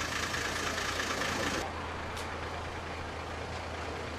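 Steady outdoor vehicle noise: a low engine hum under a broad hiss. The hiss drops suddenly about a second and a half in.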